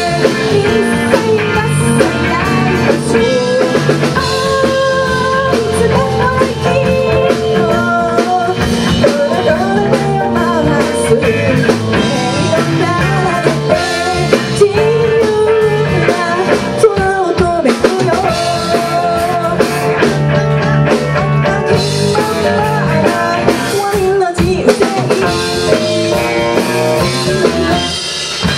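Live band playing a rock song: a woman sings lead into a microphone over electric guitar and drum kit.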